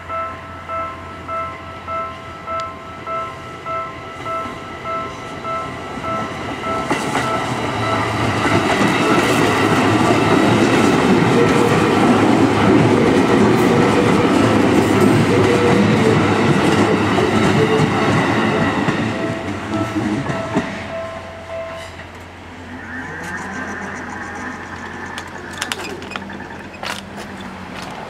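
Level-crossing bell ringing in steady pulses, a bit under two a second, while a Seibu 101-series electric train passes and its wheels clatter over the rails. The bell stops about 21 s in, and the passing train fades to a quieter run.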